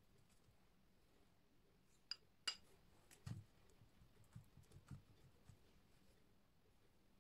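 Quiet kitchen handling sounds: two sharp clinks, one just after the other, about two seconds in. Then a few soft low dabs as a pastry brush spreads oil and spices over zucchini slices on a baking tray.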